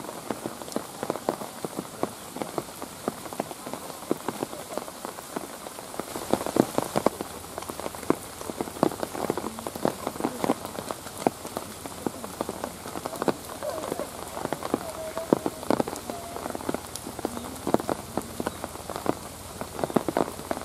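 Steady rain falling, with many irregular raindrops ticking close by on a hard surface.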